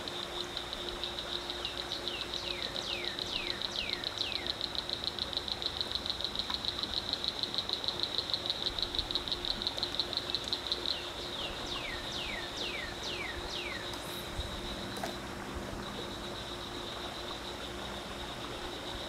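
Evening insect chorus: a steady high buzz, with a fast rhythmic pulsing trill that swells and then stops about halfway through. Twice a bird sings a run of five or six quick downslurred whistled notes.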